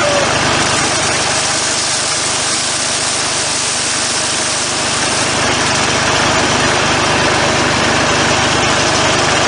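Hammer mill driven by a Kubota engine, running steadily with a dense mechanical din as it threshes wheat.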